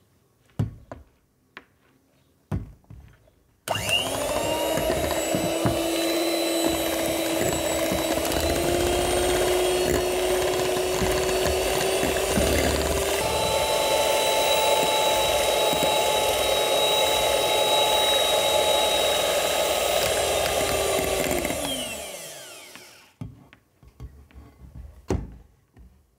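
Electric hand mixer beating cream and condensed milk in a glass bowl to thicken it. After a few light knocks, the motor starts abruptly and runs steadily with a whine, its pitch stepping up slightly about halfway. It then winds down with a falling pitch, followed by a few more light knocks.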